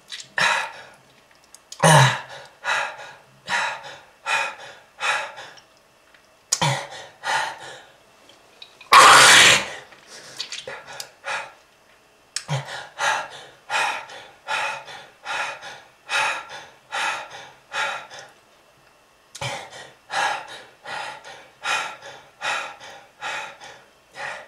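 A person coughing hard over and over: short harsh coughs, each starting suddenly, about one a second, with one longer, louder rasping hack about nine seconds in. It is a heavy smoker's cough.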